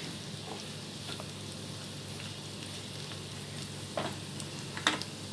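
Mutton pieces frying in oil in a kadai, a steady sizzle, with a wooden spatula stirring and knocking against the pan twice near the end.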